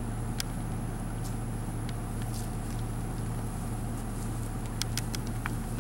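Steady low hum under a faint, even hiss, with a few light clicks scattered through.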